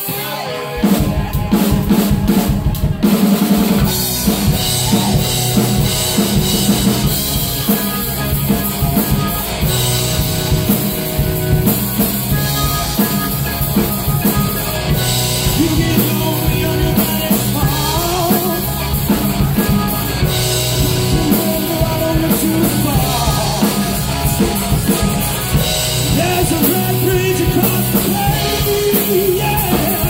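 Live rock band playing: drum kit, bass guitar and electric guitar, the drums coming in hard about a second in.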